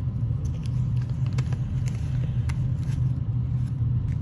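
A steady low rumble runs throughout, with a few light clicks as a package is handled and opened.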